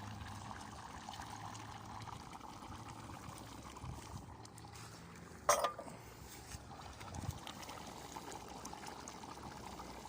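Goulash simmering and bubbling in a kettle, a steady watery bubbling. One sharp knock comes about halfway through.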